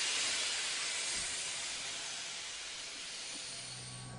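Narrow-gauge steam locomotive standing with steam hissing out of it: a steady, loud hiss that slowly fades.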